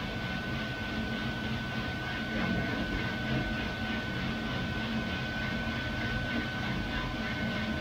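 Loring 15k Falcon coffee roaster running mid-roast: the steady whir of its fans and burner with beans tumbling in the rotating drum. A steady high whine sits over a low hum.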